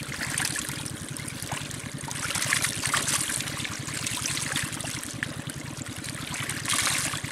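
Water running and splashing through a shallow muddy ditch, pouring past a bamboo fish trap.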